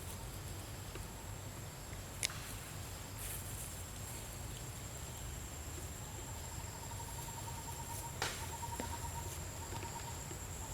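Insects calling: a steady high-pitched drone throughout, joined about six seconds in by a lower pulsing trill, over a low rumble, with two sharp clicks.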